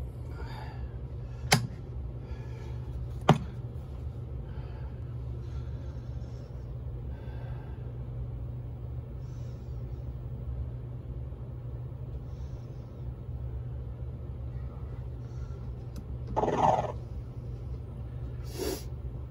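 Steady low electrical hum from a powered pinball board test rig. Two sharp clicks come about one and a half and three seconds in, and a brief louder noise about sixteen seconds in.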